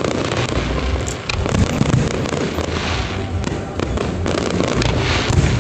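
Aerial fireworks shells bursting in dense, rapid popping, with louder bangs about two seconds in and near the end.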